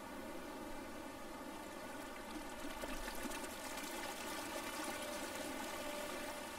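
Faint, steady rush of water, a little louder from about two and a half seconds in.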